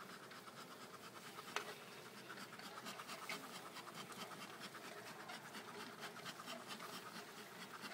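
Honeybees massed on an exposed wax comb: a faint buzz under rapid, scratchy crackling, with one sharp click about one and a half seconds in.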